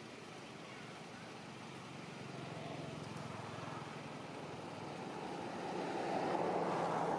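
A motor running, heard as a low steady hum under a rushing noise that grows louder toward the end.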